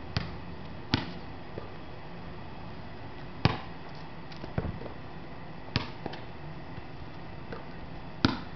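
A basketball striking the backboard, rim and ground during shots at a hoop: about six sharp thuds, irregularly spaced a second or more apart.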